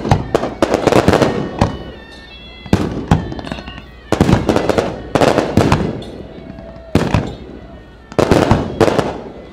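Aerial fireworks shells bursting one after another in a fireworks show. Sharp loud bangs come every second or so, some single and some in quick clusters of crackles, each dying away over about a second.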